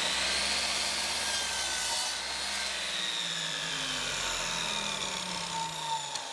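Electric miter saw making a 10-degree angled cut through two clamped-together 1x4 boards: a high motor whine over the rasp of the blade in the wood. The whine slowly falls in pitch in the second half.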